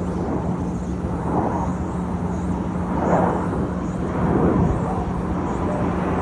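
Display airplanes flying at an air show. A distant engine rush swells and fades a few times over a steady low hum.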